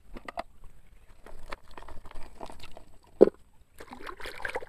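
Hands digging through sand in a toy truck's load bed, with crunching and scraping sand and small clicks and knocks of plastic toys. One sharp knock about three seconds in is the loudest sound.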